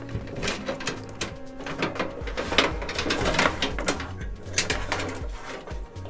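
Background music with a low, steady beat, over intermittent clicks and rattles of power-supply cables and plastic connectors being pulled out through a metal PC case.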